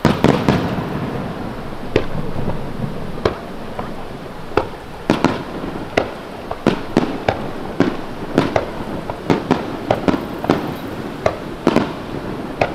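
Fireworks display: aerial shells bursting, a loud boom right at the start and then a long run of sharp bangs that come faster and closer together toward the end.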